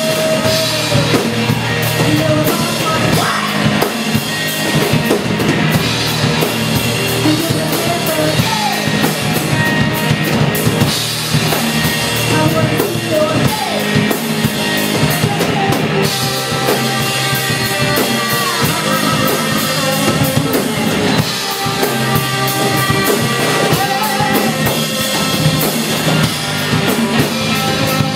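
Live rock band playing loudly: pounding drum kit with bass drum and electric guitar, without a break.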